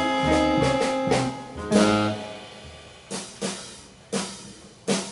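Live jazz sextet of tenor and alto saxophones, guitar, piano, double bass and drums playing. A held ensemble chord lasts about two seconds and ends in a loud accent. It then thins out to a few short, separated hits with gaps between them.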